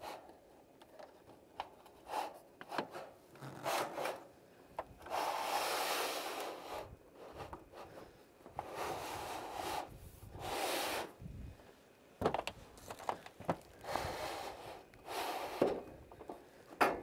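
Sheet-metal hip cap being pushed up a metal roof's hip over the hidden Z flashings: several metal-on-metal scrapes, each one to two seconds long, with light knocks between them.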